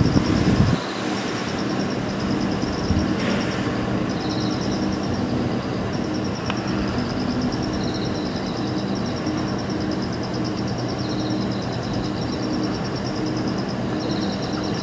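Night insects chirping in repeated short, high, pulsing trills over a steady rushing background noise. A brief low rumble comes in the first second.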